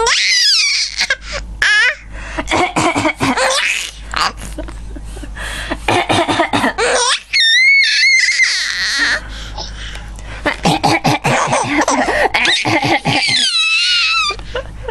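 A woman coughing in short bouts while a young child laughs hard in reply, with high-pitched squeals of laughter, the loudest about halfway through.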